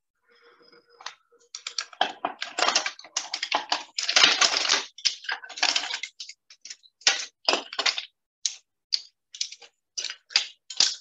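Mussel shells clattering and clicking against each other and the stainless steel stockpot as they are laid by hand onto the crawfish. A dense run of clicks comes first, then single clicks two or three a second.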